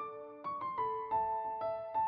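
Piano music: a gentle melody of single notes struck one after another, each left ringing as it fades.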